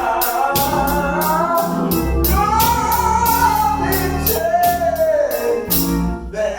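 Gospel song: a sung vocal melody over a band with bass and a drum kit keeping a steady beat.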